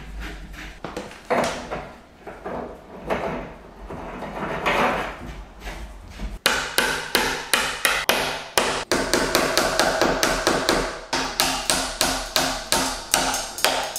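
Hammer blows at a steady pace of about three a second, starting abruptly about six seconds in after a stretch of quieter, irregular knocking and handling.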